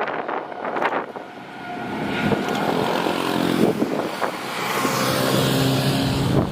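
Jet airliner engines growing louder as the aircraft passes, a steady rushing with several low tones under it, while strong wind buffets the microphone.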